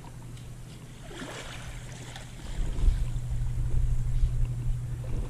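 Wind buffeting the microphone over moving water, the low rumble growing louder and gustier about halfway through.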